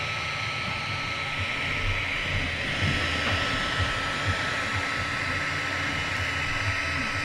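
XVICO X3S 3D printer running a print: a steady whirring hiss with a thin, steady high tone and soft, irregular low clicks.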